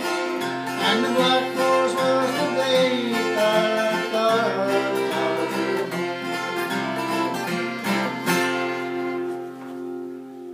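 Acoustic guitar strummed, with a last chord about eight seconds in that rings on and fades away.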